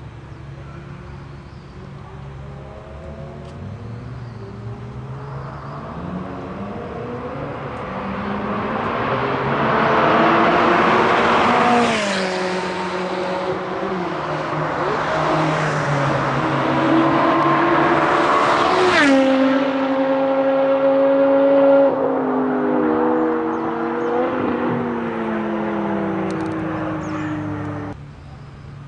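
BMW E60 5 Series with a custom exhaust under hard acceleration, the engine note climbing steadily and dropping sharply at two upshifts. Past the second shift the throttle eases off, the note settling and slowly falling, before the sound cuts off suddenly near the end.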